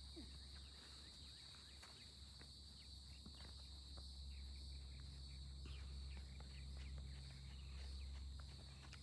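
Near silence: faint outdoor background with a steady high-pitched drone and a low hum, dotted with a few faint ticks.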